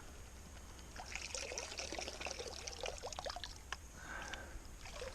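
Water pouring and trickling, starting about a second in, with many small clicks through it.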